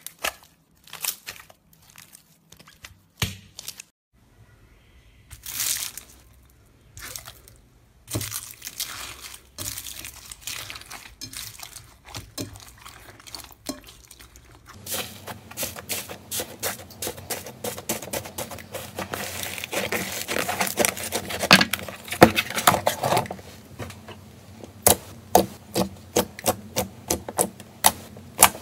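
Hands squeezing, pressing and poking slime: sticky crackling and wet popping, thick from about halfway, with a run of separate sharp pops near the end as fingers poke into the slime.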